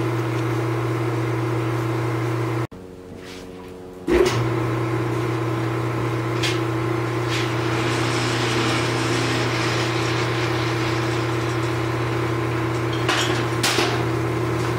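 Steady hum of running blacksmith-shop machinery, with a faint hiss and a few light clinks. The hum drops away for about a second and a half around three seconds in, then returns.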